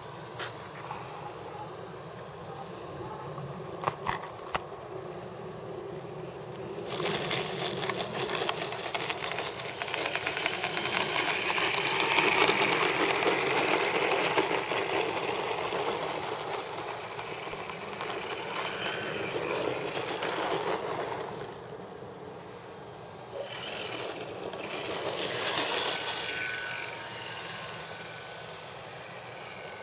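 Electric motor and propeller of a Parkzone Corsair RC foam warbird buzzing past on low passes. The sound swells loudly about a quarter of the way in, peaks, fades, then swells again near the end.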